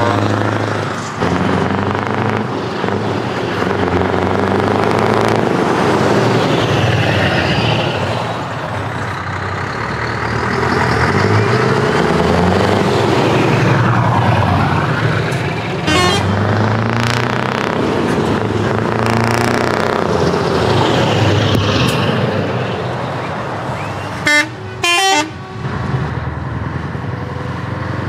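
Heavy trucks' diesel engines running loud as they drive past one after another, their pitch rising and falling with throttle and gear changes. An air horn gives a short toot a little past halfway, and two short, louder blasts come a few seconds before the end.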